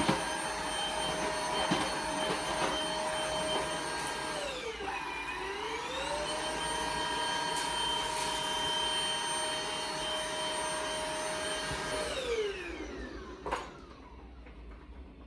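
Vacuum cleaner motor running with a steady whine. The pitch dips briefly about five seconds in and comes back up, then winds down and stops near the end, followed by a sharp click. This is the vacuum being run after the hair tangled around its brush roll has been cleaned out.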